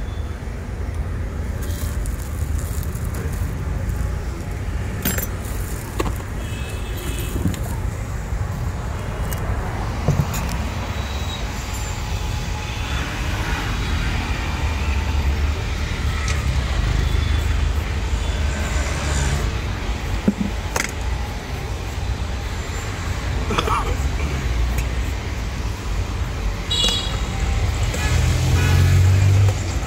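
Busy road traffic: a steady rumble of passing vehicles, with a couple of short horn toots and background voices.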